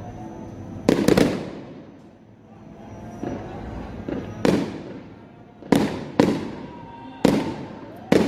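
Aerial fireworks shells bursting overhead: a string of sharp bangs, roughly one every second or so, some coming in quick pairs, each trailing off in an echo.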